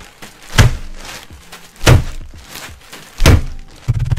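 A plastic bag of cookies slammed down on a desk, three heavy thuds about a second and a quarter apart, crushing the cookies into crumbs. Near the end a fast, continuous rattling rhythm begins.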